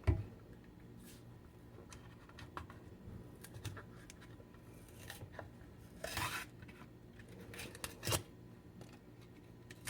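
A new mayonnaise jar being opened and handled: a knock at the start, light clicks and scrapes, a short rasping tear about six seconds in (typical of the lid or inner seal coming off), and a sharp knock about two seconds later.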